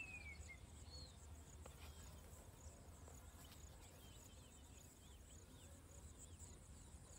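Faint outdoor ambience: a steady, high, pulsing insect buzz with a few short bird chirps. The clearest chirp is a falling whistle right at the start, and fainter ones come midway.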